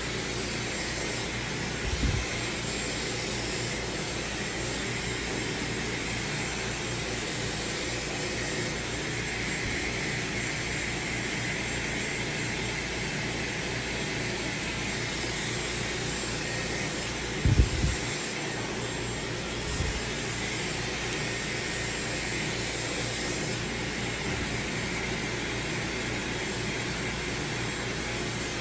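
Dyson hair dryer blowing steadily as hair is dried and brushed straight. A few short low thumps break in, the loudest about two-thirds of the way through.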